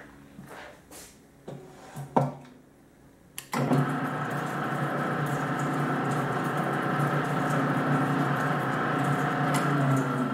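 Hobart A-200T 20-quart gear-driven mixer: a few knocks and clicks as the bowl is raised, then about three and a half seconds in the motor starts and the mixer runs steadily and smoothly.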